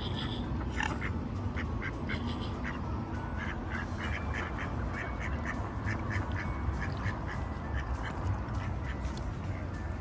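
Ducks quacking in many short calls, several a second, over a steady low rumble.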